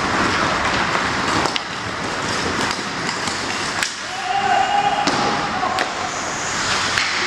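Ice hockey rink sounds: a steady background of arena noise broken by sharp clicks of sticks and puck on the ice, with one held shout about four seconds in.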